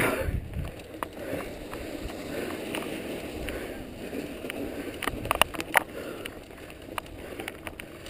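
Mountain bike rolling over a rocky, snowy dirt trail: a steady noise of tyres on gravel and snow, with sharp clicks and rattles from the bike over the stones, a quick cluster of them about five seconds in.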